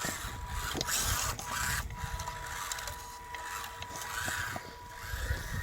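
Small F130 electric motor and gear transmission of a 1/24-scale RC4WD mini crawler whining steadily as the truck drives, with scattered light clicks and rustles from the ground.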